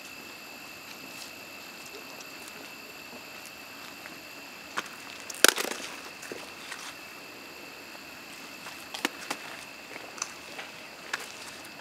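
Wire-mesh metal gate being handled: one sharp loud clank about five and a half seconds in, with lighter clicks and knocks before and after it, over a steady hiss and a thin high tone.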